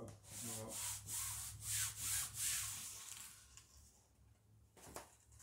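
Sailcloth being rubbed and handled by hand, a run of quick rasping scrapes for about three and a half seconds, then quieter, with a single sharp tap near the end.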